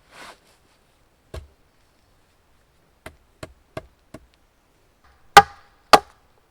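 Small hatchet striking timber: one knock, then four light taps about three a second, then two heavy chops about half a second apart.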